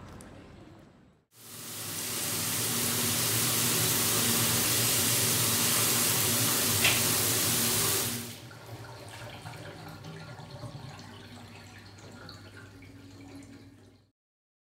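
Shower running: a loud, even spray of water that comes on and builds over about a second, runs steadily, then stops about eight seconds in.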